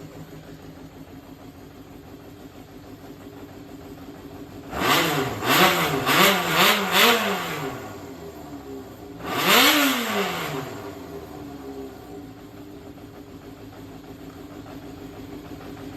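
Yamaha XJR400's air-cooled inline-four engine idling steadily, then revved in four quick throttle blips about five seconds in and one more a couple of seconds later, each time settling back to idle. It runs without abnormal noise, which the seller offers as a sign that the engine is in good condition.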